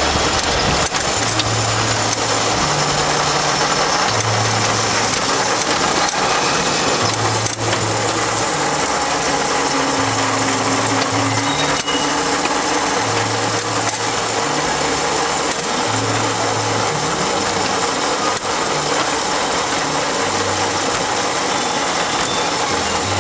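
Miniature ride-on railway train running along its track, heard from on board: a steady rattling running noise with occasional sharp clicks.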